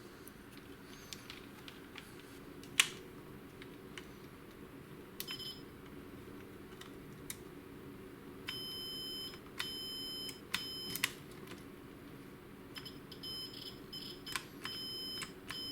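Keyboard key switches clicking as they are pressed, then a meter's continuity beeper sounding in about five steady beeps of a fixed pitch in the second half, each beep a sign that the tested key switch is making contact.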